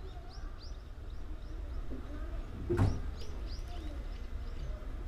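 Inside a Tobu 6050-series electric train standing at the platform: a low steady hum from the car, with small birds chirping outside in quick falling notes. About three seconds in, a single sharp knock: the crew-cabin door rattling in its frame.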